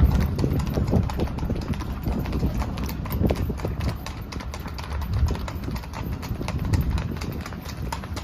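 Horses' hooves clip-clopping in a steady run of sharp knocks, over a low rumble.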